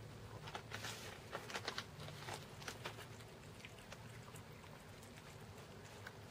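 Two cats eating raw meat from dishes: faint, irregular wet chewing and lapping clicks, busiest in the first few seconds.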